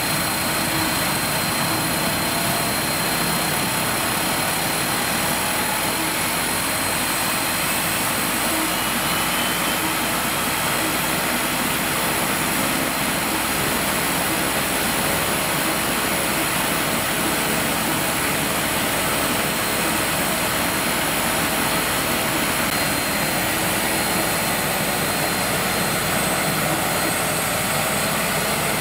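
Pratt & Whitney PT6 turboprop engine running on the ground, a steady turbine whine of several high tones over a broad rush of propeller and exhaust noise.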